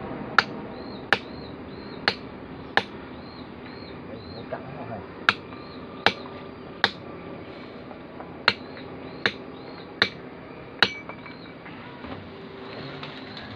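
Hammer blows on a chisel chipping at rock: about eleven sharp, separate strikes at an uneven pace, with a pause of two or three seconds near the middle.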